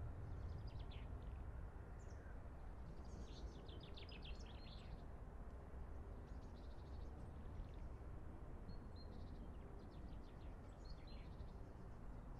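Small songbirds chirping and trilling in several short quick bursts, faint, over a steady low rumble.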